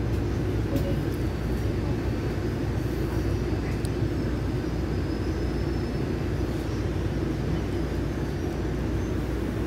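Steady low rumble of a moving vehicle, heard from inside it, with a few faint clicks and rattles.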